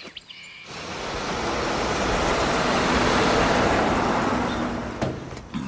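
A motor vehicle drives past. Its noise swells over a couple of seconds and fades away again.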